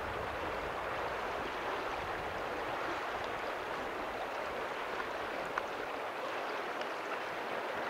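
Steady running of river water over a shallow gravel bar.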